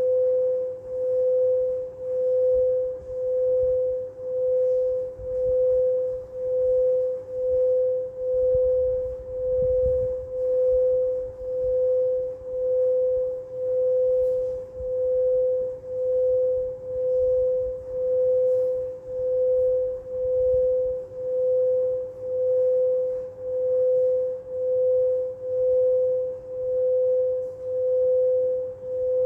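Singing bowl giving one steady, sustained tone that swells and fades about once a second, with no separate strikes.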